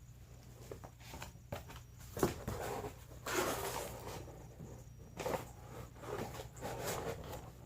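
Cardboard being handled and torn: irregular scraping and ripping bursts with a few sharp knocks, the loudest a little over two seconds in and around three to four seconds in.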